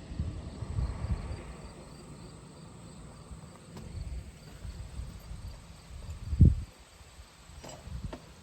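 Wind buffeting the microphone outdoors, with faint insect chirping and one dull thump about six and a half seconds in.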